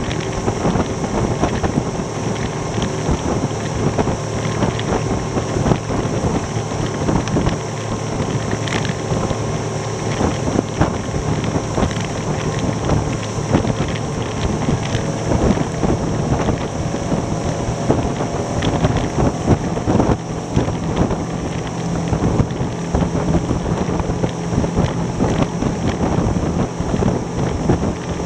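Outboard motor of a rigid inflatable boat running steadily at about 30 mph, under heavy wind buffeting on the microphone, with frequent short knocks from the hull running over the chop.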